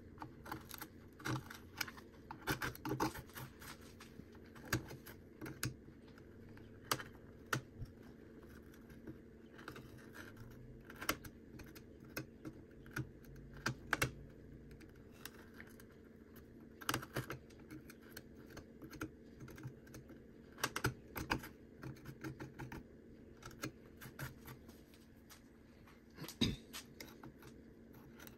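Hand carving blade cutting into cottonwood bark: short, irregular clicking and scraping cuts as chips are taken off. A faint steady hum runs underneath.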